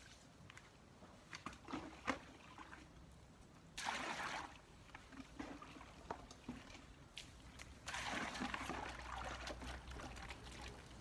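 Water scooped from a plastic bucket with a long-handled dipper and splashed out, in two bursts about four seconds apart, the second one longer. Before them come a few sharp knocks of the dipper against the bucket.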